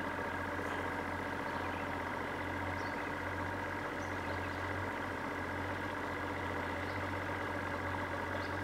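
Electric trolling motor running steadily, pushing the boat slowly: a low hum with a steady high whine over it.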